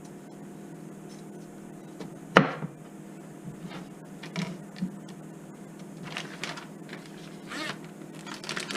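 A kitchen knife chopping vegetables on a cutting board: one sharp knock about two and a half seconds in, then a few lighter taps and some handling noise, over a faint steady hum.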